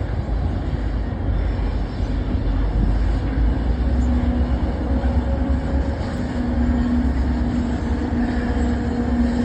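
Diesel locomotives hauling a freight train, running with a steady low rumble; from about four seconds in a steady engine drone holds one pitch over the rumble.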